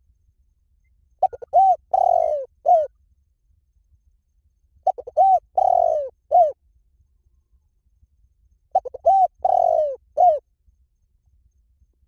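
Spotted dove cooing, its phrase given three times about four seconds apart. Each phrase has a few quick short notes, then arched coos, one of them longer, and a closing coo.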